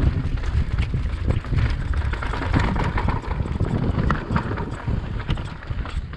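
Yeti SB160 mountain bike riding fast down a dry dirt singletrack: tyres rumbling over the trail, with a constant patter of small knocks and rattles from the bike over bumps, and wind buffeting the microphone.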